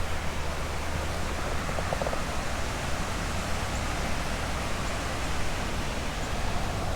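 Steady hiss and low rumble of road traffic passing on a nearby roadway.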